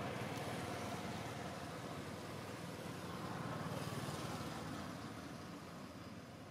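Steady low rumble with a hiss over it, growing fainter over the last couple of seconds.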